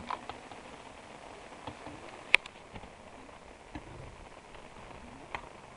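Steady hiss of rain falling on a lake surface, with a few sharp clicks, the loudest one about two seconds in.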